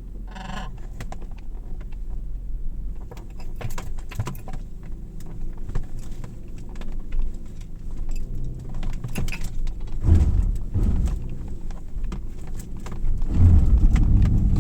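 Subaru Outback's engine and drivetrain labouring up a rocky slope in X-mode, with a low roaring from under the car and many clicks and knocks of stones and suspension. The roar swells into loud low bursts about ten seconds in and again near the end. It comes as the traction control cuts in on wheels losing grip, a sound the owner finds scary, as if something is breaking.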